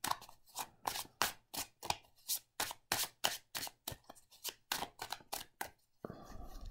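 A thick tarot deck on heavy card stock being overhand-shuffled by hand: a quick run of papery slaps and riffles, about three or four a second, stopping near the end.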